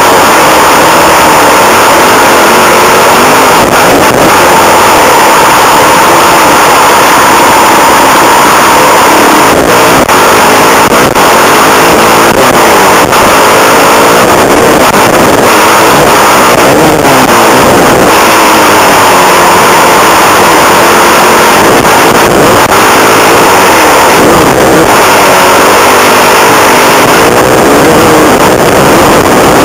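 Suzuki motocross bike's engine, recorded loud on a helmet camera, its revs rising and falling over and over as it accelerates out of corners and backs off for jumps. Wind rush and occasional knocks from the rough track are mixed in with the engine.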